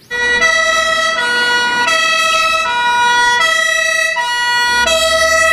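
German fire engine's two-tone siren (Martinshorn) sounding, switching back and forth between a lower and a higher note, each held about two-thirds of a second. A low rumble lies under it near the start and again near the end.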